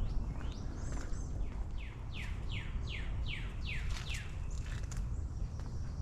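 Northern cardinal singing a rapid run of about eight clear down-slurred whistles, roughly three a second, starting about a second and a half in, over a steady low background noise.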